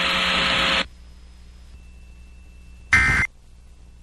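A loud hiss with a faint hum under it cuts off sharply less than a second in. About two seconds later comes a short, loud burst of EAS SAME digital data tones: the first of the end-of-message bursts that conclude the test.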